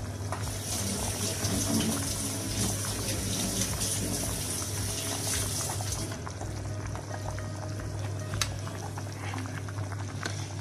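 Pot of dry-bean stew with sucuk boiling hard: a steady bubbling and hiss, the hiss dropping away about six seconds in.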